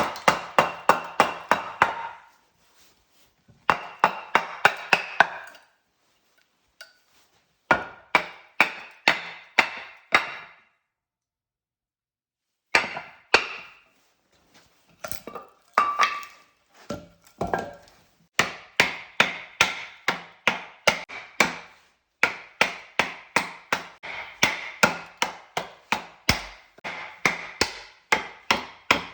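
Quick, light strikes of a hand tool, about five a second, in bursts of a few seconds with short pauses between; each strike has a slight ring.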